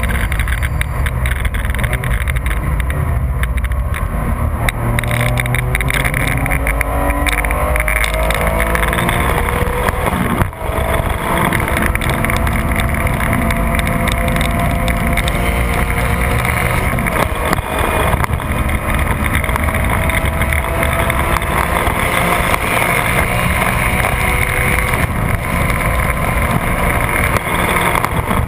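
2004 Porsche 996 GT3's 3.6-litre flat-six under hard acceleration at high revs, heard from inside the cabin over wind and road noise. The engine note climbs, breaks briefly about ten seconds in, then climbs again.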